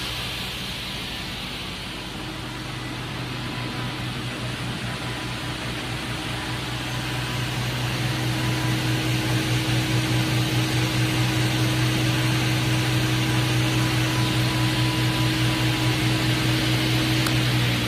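SCM M2 220/120 crawler-feed multi-rip saw running with a steady machine hum, which grows louder and takes on a fast pulsing beat about eight seconds in.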